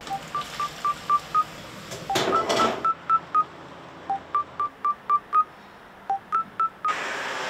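A tune played in short electronic beeps like telephone keypad tones, about four beeps a second, stepping between a few pitches. A brief burst of noise about two seconds in.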